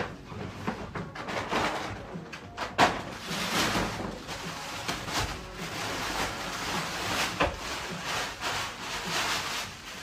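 Plastic bags and packaging rustling and crinkling as they are handled, with a couple of sharp knocks about three seconds in and again near seven and a half seconds.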